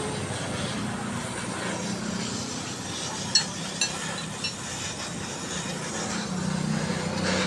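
Electric arc welding on a motorcycle frame: a steady hiss with a low hum. A few sharp clinks come around the middle.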